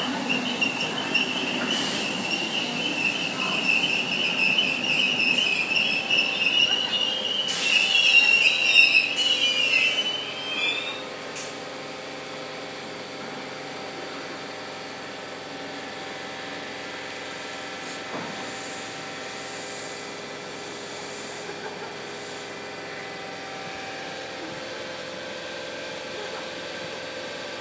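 Southern Class 313 electric multiple unit braking into the platform with a steady high squeal, loudest just before it stops about 11 seconds in. The stationary train then hums steadily.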